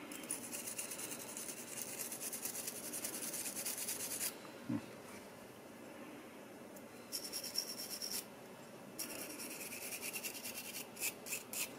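Brass wire brush scrubbing the bare die-cast metal body of a toy car in quick back-and-forth strokes, cleaning oxidation off the metal. The scrubbing comes in three spells with short pauses between them.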